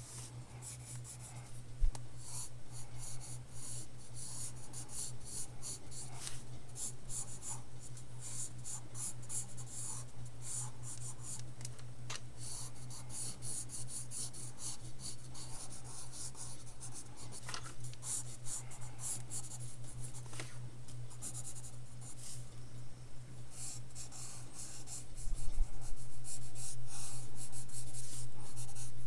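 Graphite pencil scratching on sketchbook paper in quick repeated strokes, growing louder near the end, over a steady low hum.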